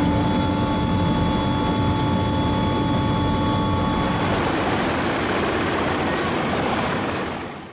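Helicopter turbine and rotor running: a steady hum with a few held whine tones, changing about four seconds in to a broader rushing sound with a high whine. It fades out near the end.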